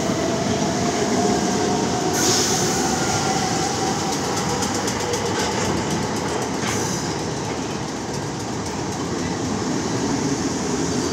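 Southern Electrostar electric multiple unit running past alongside the platform: a steady rumble of wheels on rail with a faint, slowly rising motor whine and brief sharp rail noises a couple of times.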